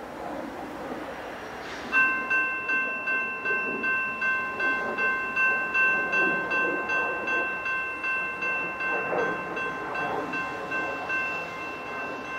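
A diesel locomotive approaching with a low rumble. A railroad bell starts about two seconds in and rings steadily at about two strokes a second.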